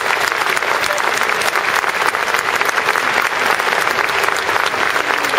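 Large stadium crowd applauding, many hands clapping in a dense, steady patter.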